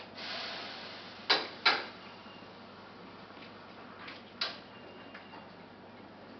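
Light kitchen clatter: a few sharp knocks of a utensil or pan, two close together early on and one more later, over a faint hiss.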